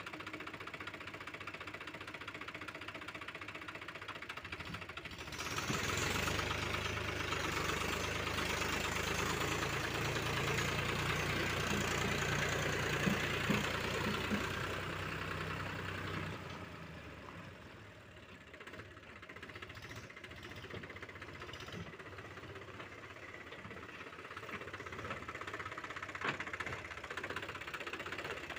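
Mahindra Yuvo 275 DI tractor's three-cylinder diesel engine running. It grows louder about five seconds in, holds there for some ten seconds, then eases back to a quieter, steady run.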